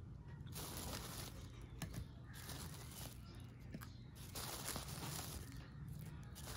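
Soft, intermittent crinkling and rustling of a plastic bag and crisp fried snacks being handled by hand, with a few faint clicks.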